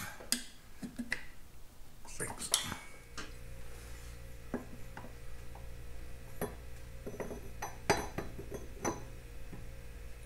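Light metal clinks and knocks from a new multi-plate clutch drum being handled and slid onto the splined gearbox mainshaft of a 1951 Vincent Rapide. The strikes are scattered and irregular, the sharpest near the end. A steady low hum comes in about three seconds in.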